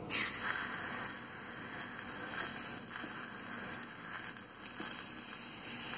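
Faint, steady sizzling crackle of food frying in oil.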